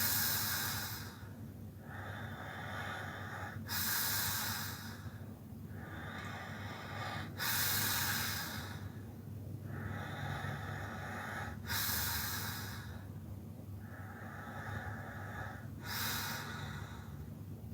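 Snoring in sleep: a loud snoring breath about every four seconds, five in all, with quieter breathing in between.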